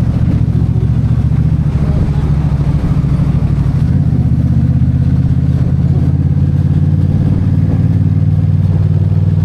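A motor vehicle's engine running at a steady speed, a low even hum.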